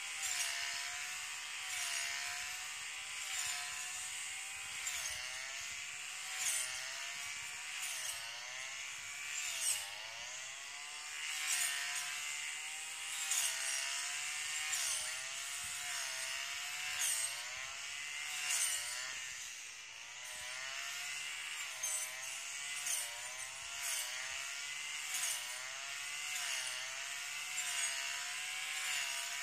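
Brush cutter running steadily at high revs, heard from a distance across the field, its whine dipping in pitch and swelling briefly every couple of seconds as the spinning blade sweeps into the grass and weeds.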